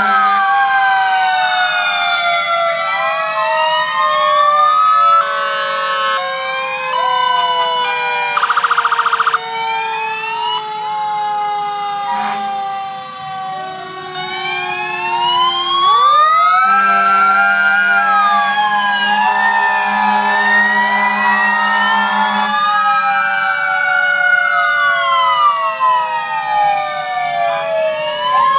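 Several fire engine sirens wailing together, their pitches rising and falling out of step, with steady blaring tones at times: sounded as a salute for a fallen firefighter.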